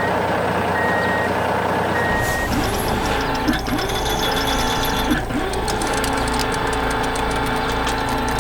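Construction vehicle's reversing alarm beeping a few times over a steady engine hum, then a rising mechanical whine that repeats every second or so.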